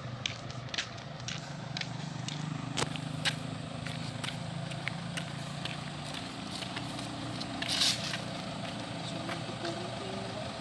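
Footsteps on a concrete road for the first few seconds over a steady engine idling, with a short rushing noise about eight seconds in.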